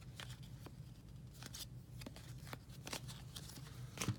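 Baseball trading cards being handled and flipped through by hand, giving a string of light, irregular clicks and slides over a faint steady low hum.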